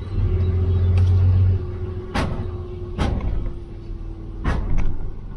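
Truck engine pulling away, heard from inside the cab: a strong low rumble for the first second and a half, then easing off, with a steady whine underneath. A few sharp knocks come in the second half.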